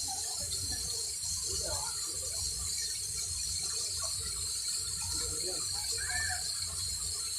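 Waterfall rushing steadily: an even, unbroken hiss of falling water with a low rumble beneath.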